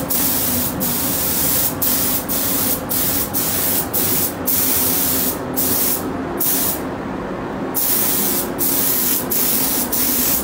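Compressed-air spray gun spraying paint, its hiss starting and stopping about a dozen times as the trigger is pulled and released for each short pass. A steady low hum runs underneath.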